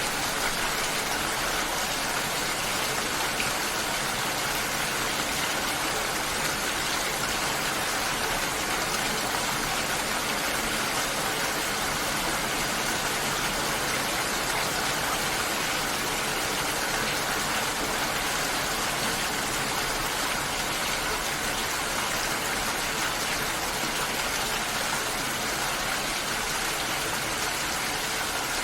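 Rain falling steadily, an even hiss of drops with no breaks or changes in level.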